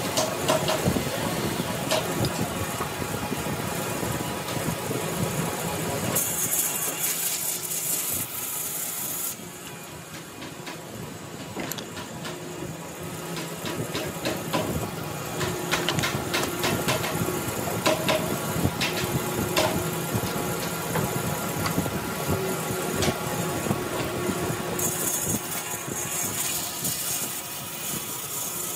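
A motor running steadily, with frequent knocks and clicks, and two bursts of high hiss lasting a few seconds each, the first a quarter of the way in and the second near the end.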